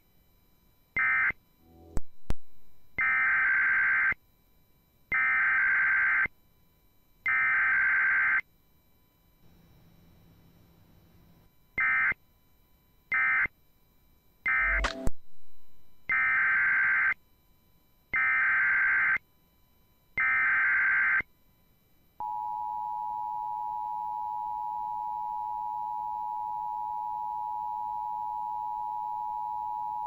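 Emergency Alert System SAME data bursts in groups of three: three short end-of-message bursts, three longer header bursts about a second each, then another three short and three long. Then the two-tone EAS attention signal (853 and 960 Hz together) comes in about 22 seconds in and holds steady for about eight seconds, announcing a new alert. Two sharp clicks, about two seconds and fifteen seconds in.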